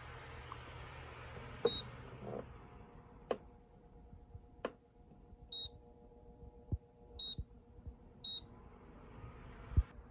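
Electric fan's control panel beeping four times as its wind-mode button is pressed to step through the breeze settings. A few sharp clicks and soft thumps fall in between, over a faint steady hum.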